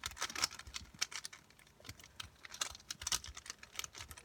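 Plastic puzzle cube being turned by hand: an irregular run of quick clicks and clacks as its layers turn, with a brief lull in the middle.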